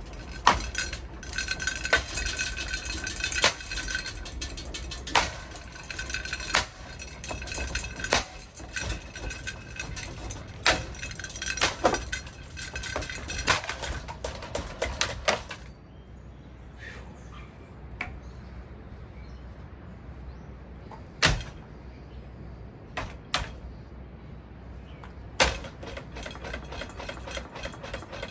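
A Casablanca Four Seasons III ceiling fan being wrecked: dense metallic clattering and clanking with a ringing tone for about fifteen seconds. It then thins to a few separate knocks, with one loud bang about three-quarters through.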